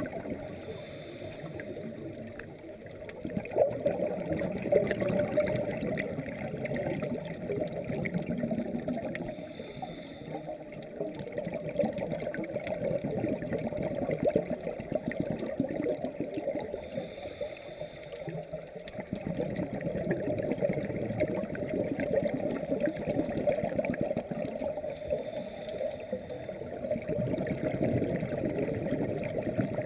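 Muffled underwater noise picked up through a GoPro's dive housing: a scuba diver's regulator breathing, with a rushing, gurgling wash of exhaled bubbles. The breathing goes in a slow cycle, repeating about every eight seconds.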